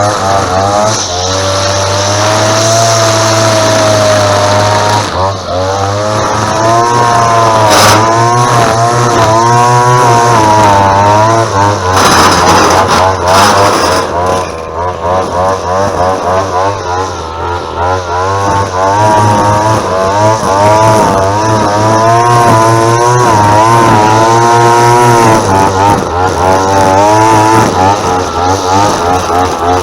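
Bushranger whipper snipper's small Maruyama petrol engine (about 23cc) running under trimming, its pitch rising and falling over and over as the throttle is worked. It is the small trimmer its user calls tiny and definitely underpowered.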